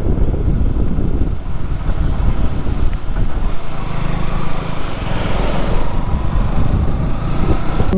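KTM Duke 200 single-cylinder engine running at steady cruising speed, heard from the rider's position with heavy wind rush over the microphone.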